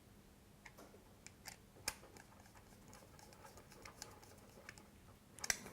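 Faint, scattered small clicks and taps as a wire is handled and fitted into a terminal of an intermediate light switch.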